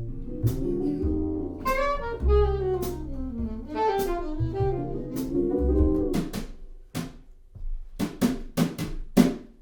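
Jazz band playing an instrumental introduction: a saxophone melody over bass and drum kit. Near the end the melody drops out, leaving a few separate drum hits.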